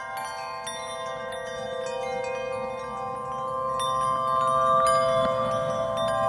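Ambient relaxation music: held, layered tones with scattered high, ringing chime strikes, slowly growing louder.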